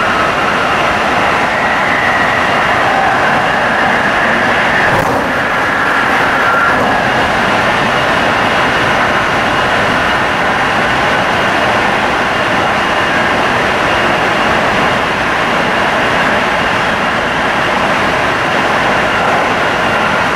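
Tsukuba Express electric commuter train running at speed, heard from inside the passenger car: a loud, steady running noise, with one short click about five seconds in.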